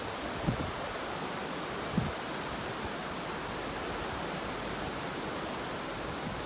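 Ocean waves heard as a steady, even hiss of surf, with two brief low thumps about half a second and two seconds in.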